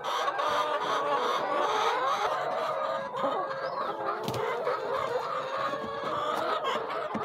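A flock of brown laying hens clucking, many overlapping calls at once in a steady chatter.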